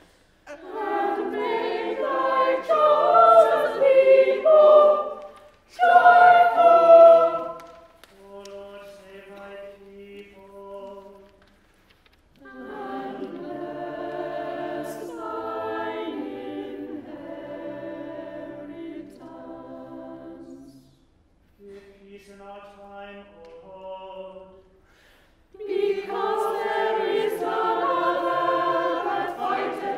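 Unaccompanied church choir singing, alternating twice with quieter passages of a single male voice chanting alone: the cantor and the choir trading lines.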